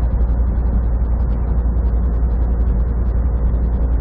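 Steady in-cab drone of a semi truck cruising at highway speed: a deep diesel engine rumble under road and tyre noise, constant throughout.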